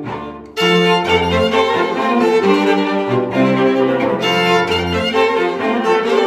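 Background music played on bowed strings, violin and cello, coming back in loudly about half a second in after a brief dip.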